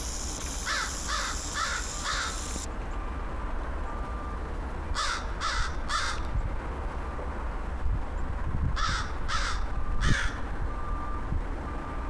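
American crow cawing in three series: four caws about a second in, three around five seconds, and three more near nine seconds, over a steady low rumble.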